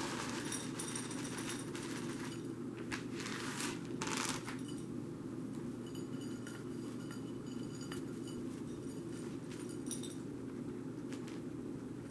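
Cat eating from a plate: scattered small chewing clicks and crunches over a steady low hum, with louder rustling and knocking in the first few seconds.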